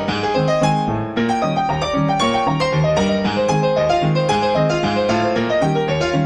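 Background piano music: a steady stream of notes played at an even pace.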